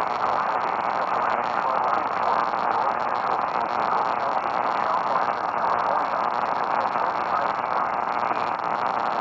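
Steady static hiss with no tones or voice.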